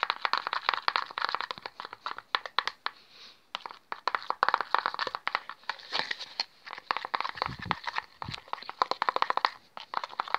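Glue and shaving-cream fluffy-slime mixture stirred with a metal spoon in a plastic bowl: a fast, irregular wet crackling of small clicks and pops. There is a short pause about three seconds in and two dull thuds about three-quarters of the way through.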